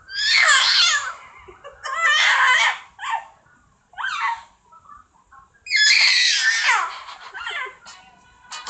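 A dog giving high-pitched whining, yowling calls in four bursts, the pitch sliding up and down, the last call the longest.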